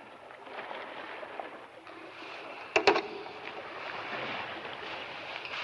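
A steady hiss of background noise on an old television soundtrack, with one short sharp click a little under three seconds in.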